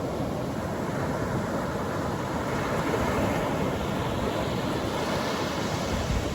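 Atlantic Ocean surf breaking and washing up the beach: a steady rush of waves, with a brighter hiss of wash swelling about halfway through and a deeper rumble building near the end.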